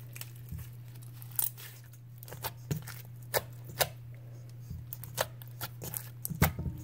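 Clear slime with foam beads being kneaded by hand in a metal bowl: irregular sharp pops and clicks over a steady low hum.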